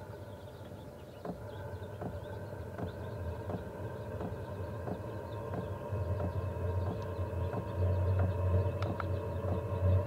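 Portable diesel heater starting up: its blower motor hums steadily with a whine, while the fuel pump ticks about every 0.7 seconds. A deep hum swells in about six seconds in, and the heater grows louder as it comes up to temperature.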